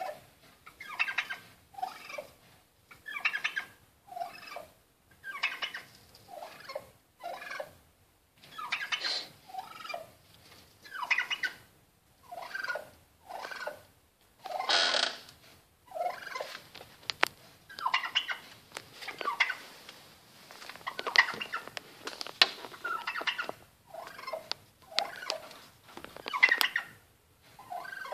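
A male turkey calling over and over in short calls, roughly one a second, with one louder, longer call about halfway through.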